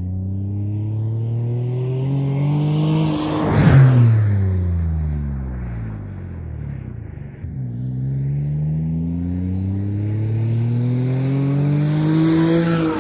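Single-turbo Nissan 350Z's V6 accelerating hard past twice. The engine note climbs as it comes in, peaks as it goes by about four seconds in, and drops away. It then climbs again, with a rising turbo whistle, to a second pass near the end. Its exhaust leaks in several places.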